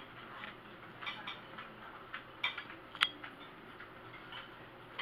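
Scattered clinks of cutlery on plates and dishes in a dining room, the sharpest single clink about three seconds in.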